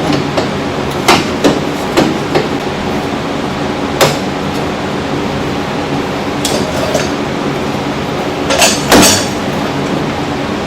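Scattered metal clanks and knocks, about nine over the stretch with the loudest pair near the end, as an aftermarket exhaust S pipe and muffler are handled and fitted, over a steady background hum.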